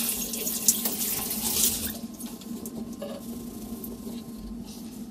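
Shower water spraying and splashing steadily, then cutting off abruptly about two seconds in, leaving a much quieter stretch with faint scattered ticks.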